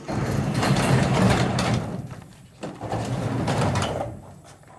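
A goat bleating twice: two long, rough, low calls, the second starting a little over half a second after the first ends.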